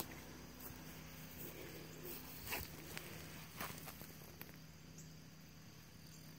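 Faint handling noise: a few soft clicks and a brief rustle, over a faint steady high insect trill.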